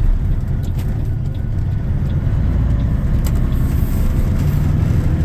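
Semi truck's diesel engine and road noise heard from inside the cab while driving: a steady low drone.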